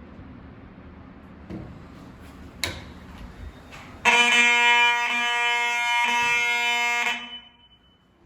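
Vintage FCI fire alarm horn sounding a loud, buzzy, continuous tone for about three seconds and then cutting off, with a single knock before it starts.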